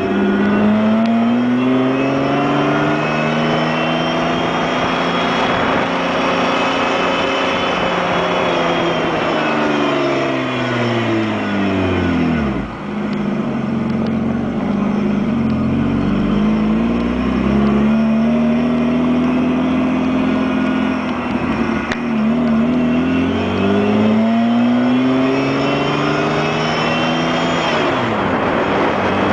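Mazda MX-6's KL-ZE 2.5-litre V6 running with a whine, the engine note and whine rising and falling in pitch together as engine speed goes up and down, with a brief drop about halfway through. The cause of the whine is unknown to the owner.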